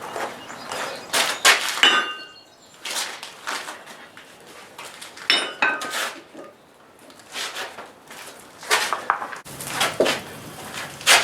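Irregular clinks, knocks and scrapes of metal tools and pieces being handled in a blacksmith's shop: a dozen or so separate sounds with no steady hammering rhythm, the sharpest one near the end.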